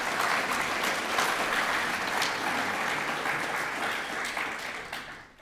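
An audience applauding: a steady patter of many hands clapping, tapering off near the end.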